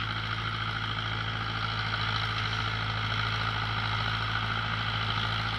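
2009-model Rossi 510 tractor's diesel engine running steadily while it drives a rotavator through the field, a constant low drone.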